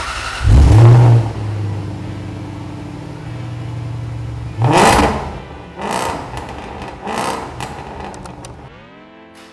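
A car engine fires up with a loud flare and settles into a steady idle. It is then blipped three times, a couple of seconds in between each, before it dies away.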